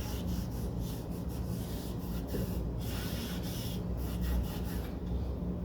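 Denatured alcohol being rubbed back and forth over the cast ornament of an old gilded picture frame, in quick, repeated scrubbing strokes. This is a solvent test, and the touch-up finish is not dissolving under it.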